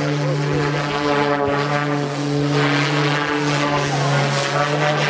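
Electric Extra 330 aerobatic model plane's motor and variable-pitch propeller running at high power, a steady, loud pitched tone with an air rush that swells about halfway through.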